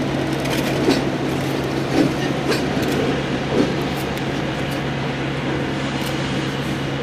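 Diesel locomotives, led by an EMD SD18 with an MLW M420 behind, running with a steady low engine drone as they move along the yard track. There are a few sharp clicks from the wheels over the rail joints in the first few seconds.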